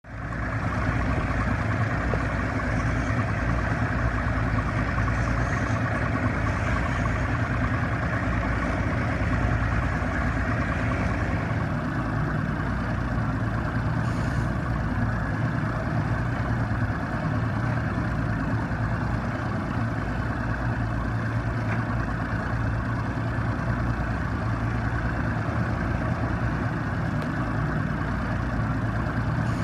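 A large engine running steadily, a constant low drone and rumble.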